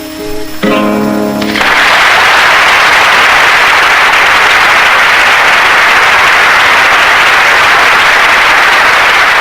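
Acoustic guitar playing the closing chord of the song, struck under a second in and ringing briefly. An audience then breaks into loud, steady applause that fills the rest of the time.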